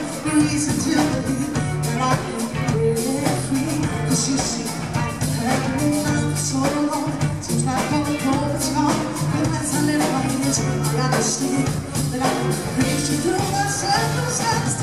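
A live rock band playing, with a woman singing lead into a microphone over drums, bass guitar and electric guitar.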